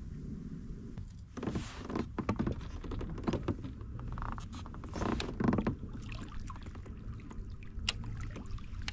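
A run of irregular knocks and scrapes, clustered in the first six seconds with one more near the end, over a steady low rumble.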